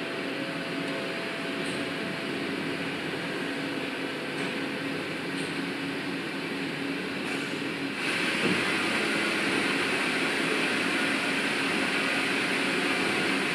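Steady factory machinery noise from an engine production line, with a held low hum and a few faint clicks. About eight seconds in it switches abruptly to a louder, hissier machine noise.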